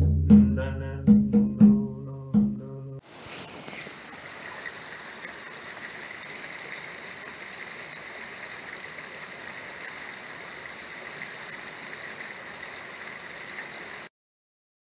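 Percussion: a few deep, pitched drum strokes that stop about three seconds in. Then the steady rushing of a brook, even and unbroken, until it cuts off suddenly near the end.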